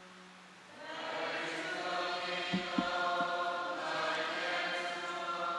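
Congregation chanting the sung response after the Gospel reading, a slow line of long held notes. A few soft knocks about halfway through as the ritual book is laid down on the wooden lectern.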